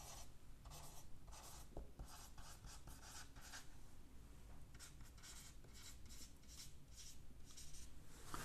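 Marker pen writing words on a white sheet: a faint run of short, quick strokes, some longer than others.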